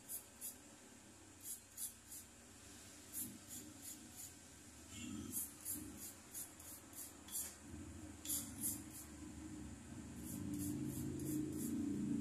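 A hand file rasping on a thin metal wire bangle, in quick short strokes that come in runs of a few at a time with pauses between. A low hum rises near the end.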